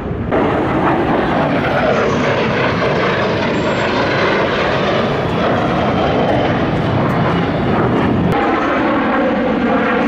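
Jet noise from US Air Force Thunderbirds F-16 fighters flying their display, a loud steady roar. The sound jumps abruptly just after the start and changes again about two seconds before the end.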